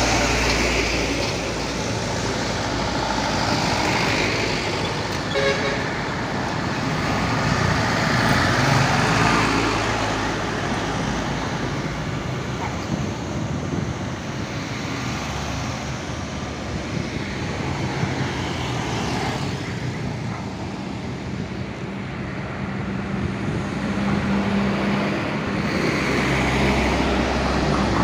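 Road traffic passing close by: loaded sugarcane trucks, cars and motorbikes going past one after another, their engines and tyres swelling and fading. Near the end a diesel truck engine grows louder as it approaches.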